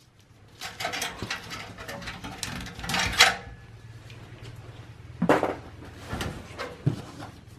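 Rustling and clicking as a small plastic power-switch and LED holder is handled and set down, with a louder click about three seconds in. A few short knocks follow as a gloved hand takes hold of the steel drive cage.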